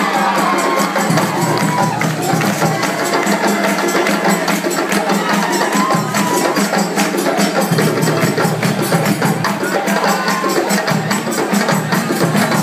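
An ensemble of djembe hand drums playing a dense, continuous rhythm, with a steady low drum pulse under it.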